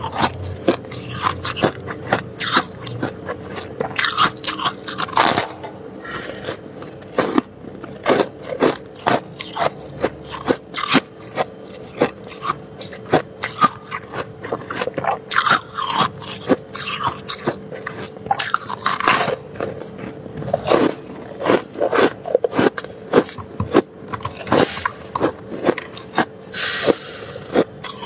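Packed freezer frost being bitten and chewed: many sharp, irregular crunches, mixed with some scraping of the frost.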